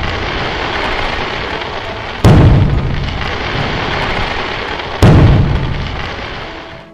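Fireworks going off: two heavy booms, a couple of seconds in and again about five seconds in, each fading away slowly over the next seconds, with the tail of an earlier boom still dying away at the start.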